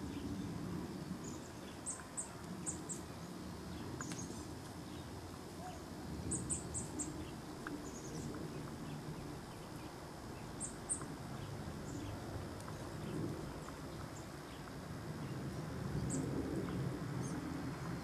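Small songbirds chirping: short, very high chirps in quick runs of three or four, with single chirps in between. A steady low rumble runs underneath.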